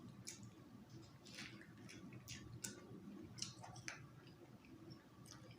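Faint wet mouth sounds of someone chewing food close to the microphone: a series of soft smacks and clicks, irregularly spaced, about one or two a second.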